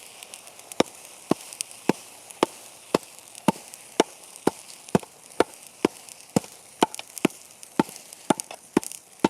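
Hammers striking the hot mass of hearth-furnace steel in steady, fairly light blows, about two a second, with fainter taps between them. The blows compact the still-hot iron and squeeze out trapped slag.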